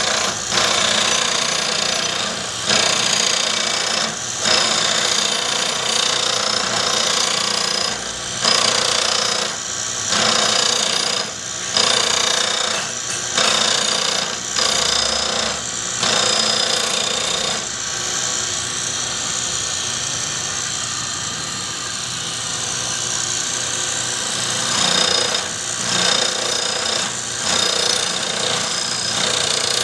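Abrasive grinding wheel on a homemade camshaft grinder grinding a steel camshaft lobe: a loud, steady, high grinding noise that drops away briefly every second or two.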